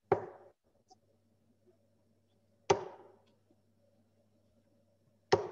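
Three steel-tip darts striking a Unicorn Eclipse HD2 sisal bristle dartboard one after another, three sharp thuds about two and a half seconds apart, each dying away quickly.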